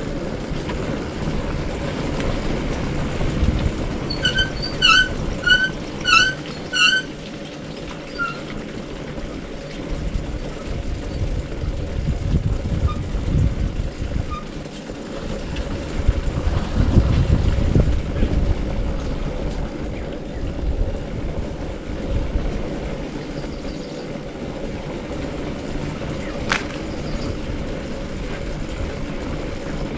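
Bajaj Avenger 160 Street motorcycle's single-cylinder engine running steadily while riding, with wind noise on the microphone. A quick series of about five short high chirps comes about four seconds in.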